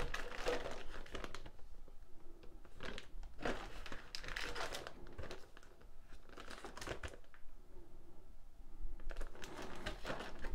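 Clear plastic bags holding plastic model-kit sprues crinkling as they are handled and lifted, in irregular bursts with short quieter gaps.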